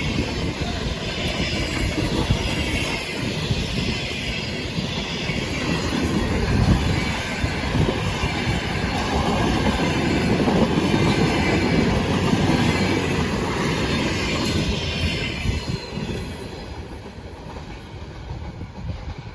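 Passenger train rolling past: a steady rumble of wheels on rail with wheel clatter and a wavering high wheel squeal. The sound dies away over the last few seconds as the train recedes.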